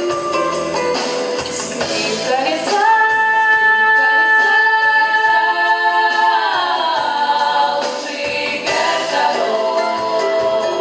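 Pop vocal ensemble singing in close harmony over a light backing. About three seconds in, the voices hold a long chord, which then slides down in pitch together before the melody moves on.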